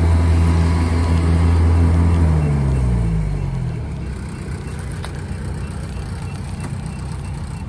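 Kubota combine harvester's diesel engine running at steady revs; about two to three seconds in the revs fall away and it runs on lower and quieter.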